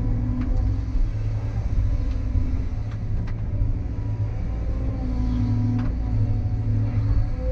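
CAT 320 hydraulic excavator's diesel engine running steadily and its hydraulics working, heard from inside the cab as the machine swings and digs, with a hum that swells and fades and a few faint clicks.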